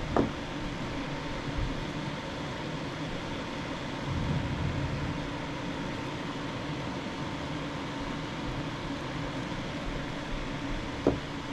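Steady fan-like hum with a faint steady whine. A sharp tap or click comes just after the start and another near the end.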